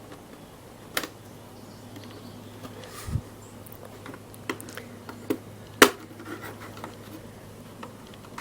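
Scattered sharp plastic clicks and snaps, about five of them, the loudest a little past the middle, as a pry tool works loose the clips holding an Asus X550Z laptop keyboard in place.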